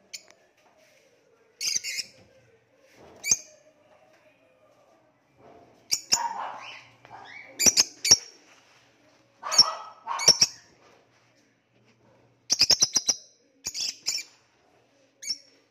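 Rosy-faced lovebirds giving sharp, high-pitched chirps in short clusters every second or two, some in quick runs of several calls.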